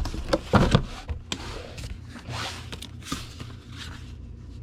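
Handling sounds of a comic book being packed into a cardboard comic mailer: cardboard and paper scraping and rustling, with several sharp knocks and clicks, loudest in the first second.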